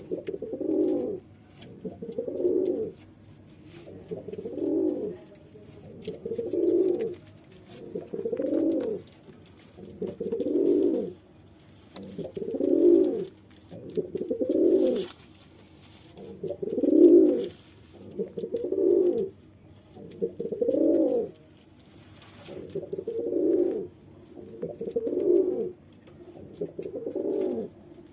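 Male domestic pigeon cooing in courtship of a female: a steady series of low coos, about one every two seconds.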